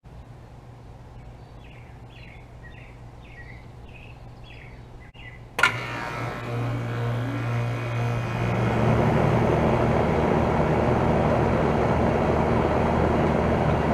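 1998 York Stellar Plus central air conditioner outdoor unit, a 1.5-ton R-22 unit, starting up: a low hum, then a sharp click about five and a half seconds in as it kicks on, its running noise building over about three seconds to a steady loud whoosh. Birds chirp in the background before it starts.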